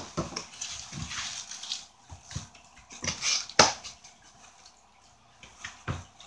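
Cardboard packaging being handled: a flat cardboard mailer and the flaps of a shipping box scraping and rustling, with a couple of sharp knocks, one a bit past halfway and one near the end.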